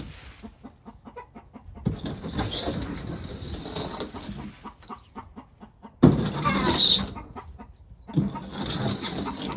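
Backyard hens clucking while a rake scrapes and rustles through soiled coop bedding, in several noisy spells with runs of short clicks between them.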